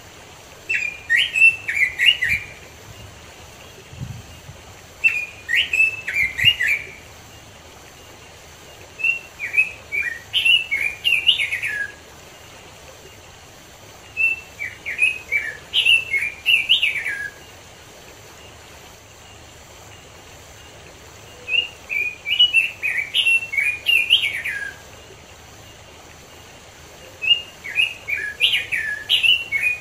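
Red-billed leiothrix (Pekin robin) singing: six quick warbling phrases of clear notes that jump up and down in pitch. Each phrase lasts about two to three seconds, with pauses of a few seconds between them.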